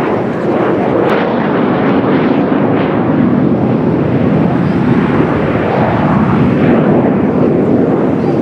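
Kawasaki T-4 jet trainers flying overhead: the loud, steady rush of their twin turbofan engines.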